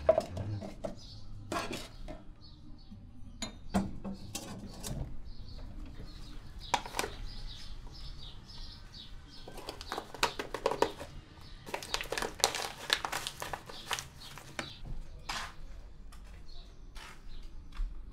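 Scattered light clinks and knocks of small hard objects being handled, busiest in the latter half, with faint bird chirps in the background.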